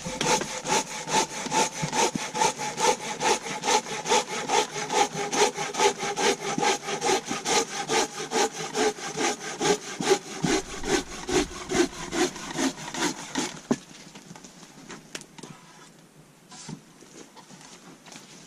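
Hand saw cutting through a log in quick, even back-and-forth strokes, about two and a half a second, stopping about fourteen seconds in.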